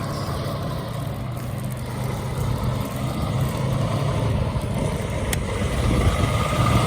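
Road traffic: a vehicle engine running steadily over road noise, slowly growing louder.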